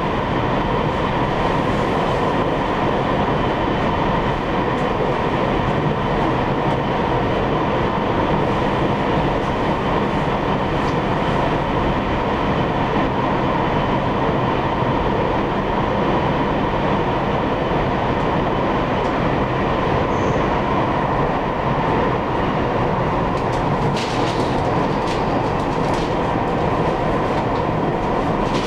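Running noise of an EMU800 electric multiple unit heard from inside the carriage: a steady rolling rumble with a constant hum. A few sharp clicks come near the end.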